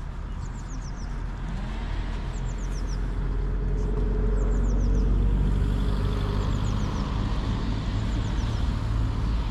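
A low motor-vehicle engine rumble that grows louder over the first half and then holds. Over it, a short run of high, falling chirps repeats about every two seconds.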